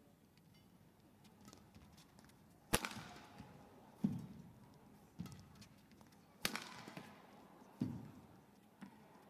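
Badminton rally: rackets striking the shuttlecock about once a second, two of the hits sharp, loud cracks and the rest duller knocks, in the faint ambience of an indoor hall.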